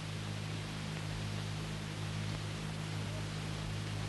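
Steady hiss with a low electrical hum underneath: background noise of an old film soundtrack transferred from VHS tape, with no distinct sound events.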